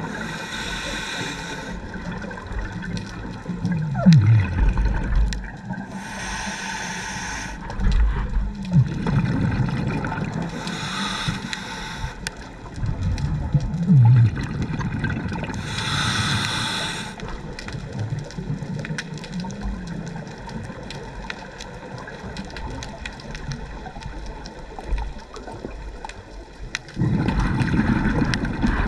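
Scuba diver breathing through a regulator underwater: a hissing inhale about every five seconds, with gurgling exhaust bubbles in between. A louder bubbling rumble starts near the end.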